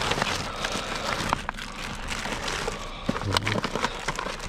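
Produce and plastic packaging being rummaged through and shifted by hand: rustling, with scattered sharp clicks and knocks.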